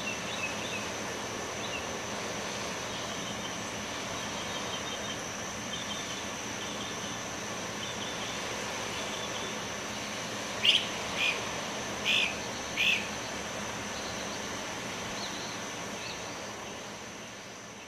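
Birds chirping over a steady hiss of outdoor background noise with a thin high steady tone. There are scattered short chirps, then four louder ones about eleven to thirteen seconds in, and the sound fades out at the end.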